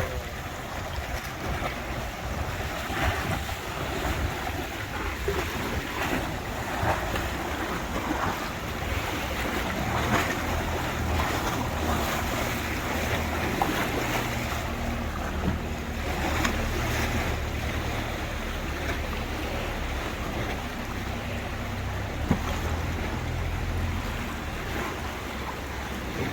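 Tour boat's engine running with a steady low hum while water splashes along the hull and wind buffets the microphone.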